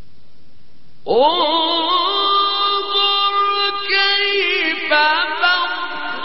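Male Quran reciter chanting in the melodic tajweed style. After a second of faint hiss, a long, ornamented vocal line begins, its held notes sliding and wavering in pitch.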